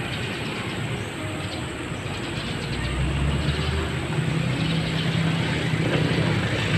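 Steady rushing traffic noise from a motor vehicle, with a low engine hum that comes in about three seconds in and slowly grows louder.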